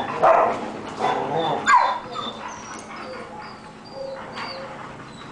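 Dogs barking during rough play, loudest in the first two seconds, with one bark falling in pitch, then faint short high squeaks.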